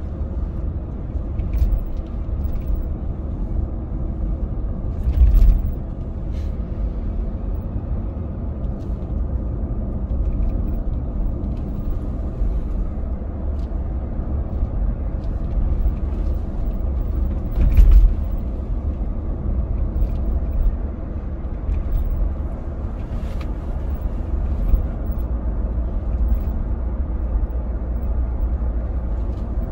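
A car driving on the road: steady low rumble of tyres and engine, with a few louder thumps, the biggest about five seconds in and about eighteen seconds in.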